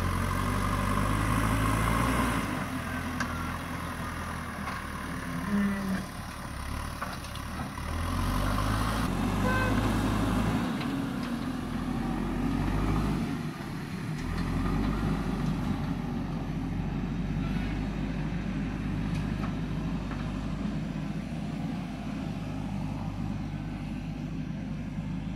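JCB backhoe loader's diesel engine running under load as it works the front loader bucket, revving up and dropping back in several surges.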